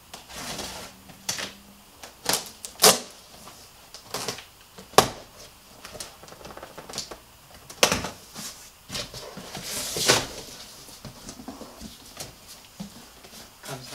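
Large cardboard shipping box being opened by hand: tape torn and flaps pulled and pushed open, a run of irregular sharp clicks, rips and scrapes.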